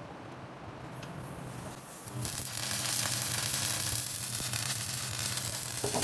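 Stick welding arc on a steel pipe: a steady crackling sizzle that starts about two seconds in, over a low hum.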